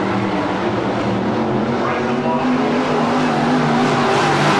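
Sport modified race car engines running on a dirt oval, one engine's pitch rising about two seconds in and holding.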